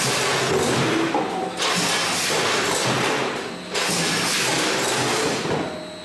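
Net bagging and clipping machine cycling: a loud mechanical rush lasting about two seconds at a time, broken by short pauses, three times over.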